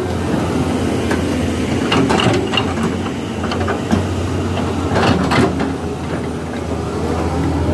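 Caterpillar crawler excavator's diesel engine running steadily, with clusters of hard knocks and clanks about two seconds in and again about five seconds in as the bucket works palm logs laid down as track mats.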